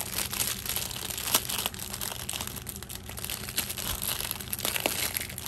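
Clear plastic packaging crinkling and rustling as it is handled, with a few sharp crackles.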